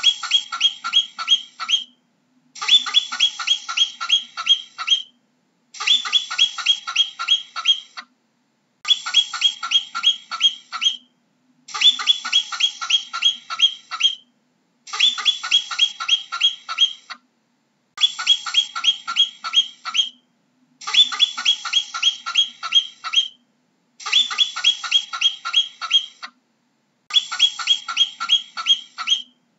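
Marmot giving high-pitched alarm chirps in rapid series, about four a second, each chirp dropping slightly in pitch. The calls come in bouts of about two seconds separated by short pauses, ten bouts in all.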